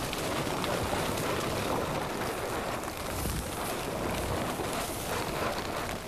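Strong wind and rain buffeting a small open boat and its rain tarp as it crosses a choppy lake, a steady rushing noise with wind on the microphone.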